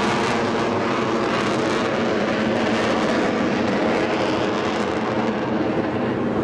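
Avro Vulcan bomber's four Rolls-Royce Olympus turbojets running in a loud, steady jet roar as it banks overhead in a display turn.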